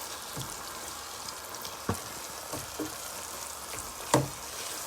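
Chicken pieces with spices and a little stock sizzling steadily in a pan, with a few sharp knocks of the stirring spoon against the pan, the loudest about four seconds in.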